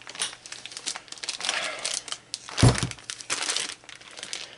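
Clear plastic packaging bags crinkling as they are handled, with one short, low thump a little past halfway.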